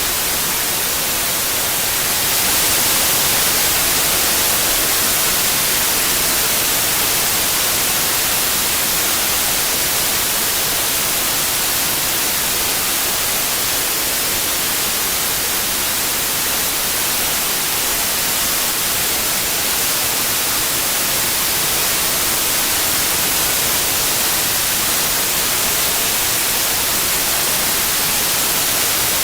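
Steady synthetic white noise: an even, featureless hiss with no tones or rhythm, heaviest in the high end. It gets slightly louder about two and a half seconds in.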